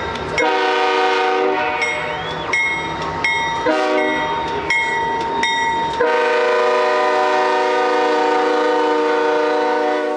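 Diesel locomotive's multi-note air horn sounding a long blast, a short one, then a long blast that stops abruptly. Between the blasts the locomotive bell rings about twice a second, over the rumble of the train's cars rolling past.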